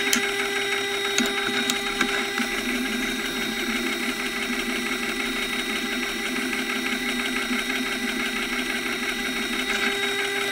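Slow-speed wet grindstone turning with a chisel held against it in a jig: a steady scraping hiss of the steel being ground on the fine-graded, water-fed stone.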